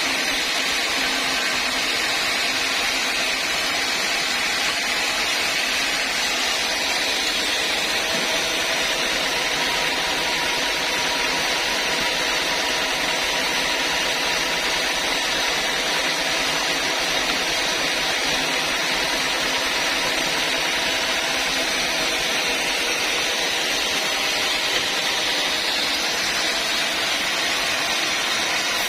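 Sawmill saw machinery running steadily, a constant mechanical drone and hiss that does not change.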